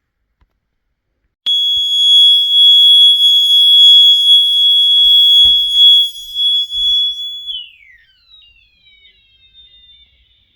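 FCI-rebranded Wheelock mini fire-alarm horn, with a piezoelectric smoke-detector buzzer, sounding one loud steady high-pitched tone for about six seconds. The tone then sags down in pitch and breaks into faint, falling chirps that die away.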